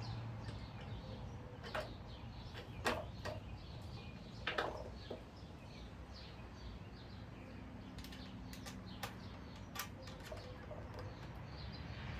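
Scattered light clicks and taps over a low steady hum, from screws and metal fittings being handled and tightened on a ceiling fan's blades and blade irons.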